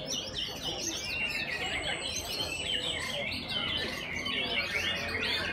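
Many caged white-rumped shamas (murai batu) singing at once in competition: a dense, overlapping chorus of quick whistled phrases and chirps that goes on without a break.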